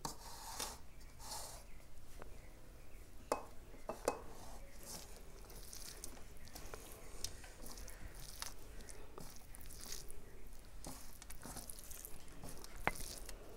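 Quiet eating sounds: food being handled on a plate and chewed, with a few sharp clicks of dishes, the clearest about three seconds in, about four seconds in and near the end.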